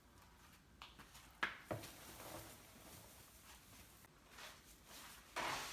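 Faint handling noises: a few light clicks and knocks, the sharpest about a second and a half in, with soft rustling between.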